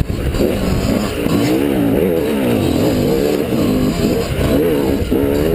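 Enduro dirt bike engine revving up and down over and over as the throttle is worked along a rutted trail, heard from close by with a rumble of wind and chassis noise underneath.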